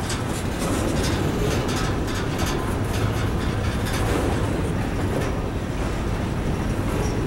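Covered hopper cars of a freight train rolling past: a steady rumble of steel wheels on the rails with irregular clicks and clatter.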